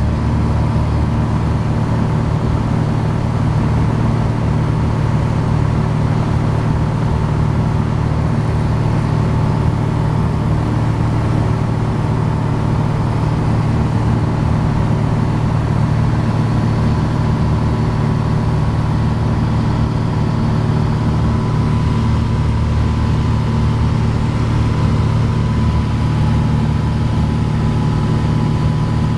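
Single-engine Piper Dakota's six-cylinder Lycoming O-540 engine and propeller heard inside the cabin in cruise flight: a loud, steady drone that does not change in pitch or level.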